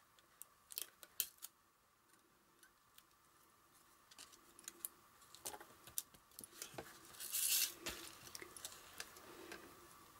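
Faint handling sounds of paper crafting: a card panel, thread and tape being handled, with scattered small clicks and taps and a brief papery rasp about seven seconds in.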